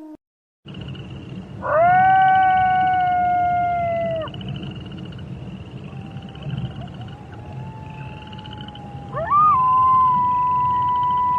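Wolves howling: two long howls that swoop up, hold a steady pitch and then drop away, one about two seconds in and one starting near the end, with a fainter howl between them. Behind them runs a steady chorus of fast pulsing calls.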